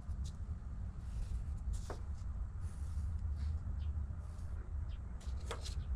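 A marker scratching in short repeated strokes as it traces around a paper template on a steel plate, with two brief squeaks, about two seconds in and near the end, over a steady low hum.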